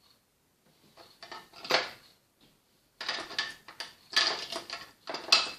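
Small plastic toy figures and playset pieces being handled, clicking and clattering against the plastic house: one sharp click just under two seconds in, then a busy run of clicks and knocks over the last couple of seconds.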